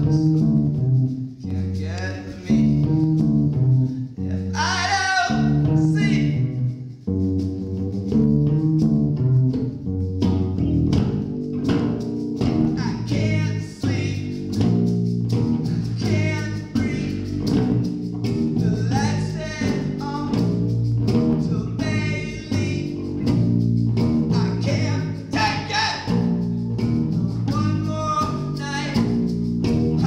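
A man singing solo while plucking an acoustic bass guitar: a steady plucked bass line under sung phrases that come and go.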